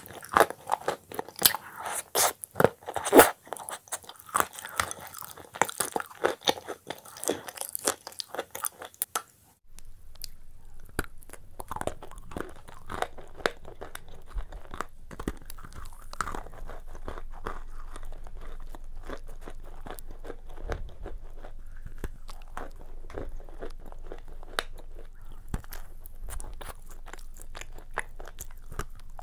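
Close-miked crunching and chewing of shortbread cookies dipped in a soft paste. About ten seconds in the sound changes abruptly from loud, sharp crunches to softer, steady chewing over a low hum.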